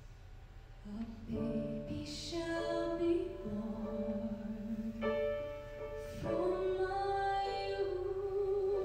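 A woman's voice singing over piano accompaniment, the singing coming in about a second in after soft held piano notes.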